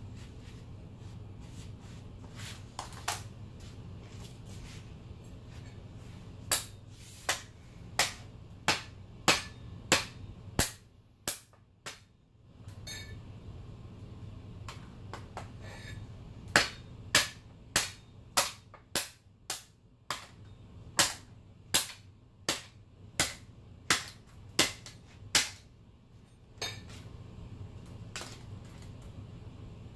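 A hand tool repeatedly striking a cell phone on a concrete floor: sharp, loud smacks about two-thirds of a second apart, a run of about seven, then after a pause a longer run of about fourteen. A steady low hum underneath.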